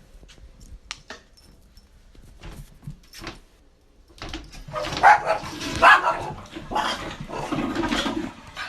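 A dog vocalising: faint small sounds at first, then two loud short bursts about five and six seconds in and a longer one near the end.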